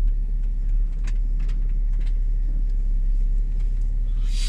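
Car cabin rumble while driving: steady low road and engine noise heard from inside the car, with a few faint clicks and a brief hiss near the end.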